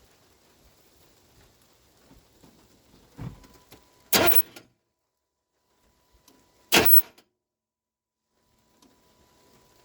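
Starter of a 1993 GMC Sierra pickup bumped twice, each a short, loud burst of cranking about two and a half seconds apart, turning the engine over just a little to check that a new serpentine belt tracks straight on its pulleys. A soft thump comes just before the first burst.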